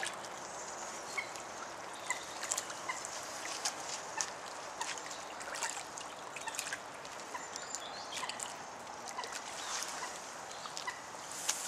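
A hooked mirror carp splashing and wallowing at the surface close to the bank: a scatter of small, sharp splashes over a steady hiss.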